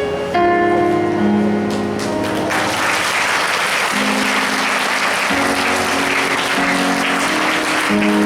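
Instrumental music with held notes playing, joined about two and a half seconds in by an audience clapping steadily.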